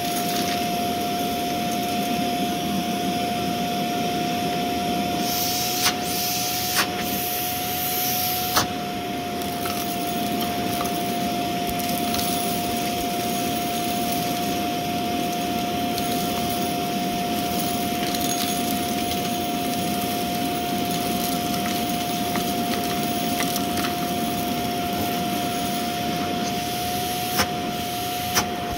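Shark Navigator upright vacuum cleaner running steadily with a constant high-pitched motor whine. A few sharp cracks come through about six to nine seconds in, the first with a brief hiss, and a couple more near the end.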